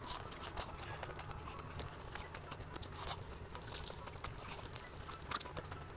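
Close-miked eating sounds: quiet, irregular mouth clicks and smacks of chewing.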